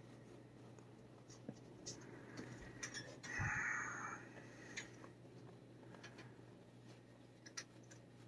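Faint rustling and scattered soft clicks of a thick leather glove rubbing over a cat's fur as it strokes the cat's head and chin. About three seconds in comes a brief breathy rush of noise lasting about a second. A low steady hum runs underneath.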